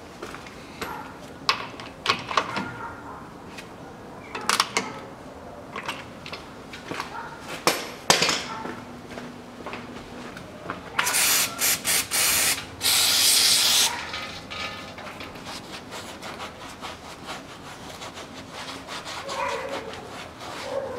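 A pressurized spray hissing in several short bursts and then one longer burst of about a second, during work on a truck's rear axle differential. Scattered clicks and knocks of hand work on the axle come before it.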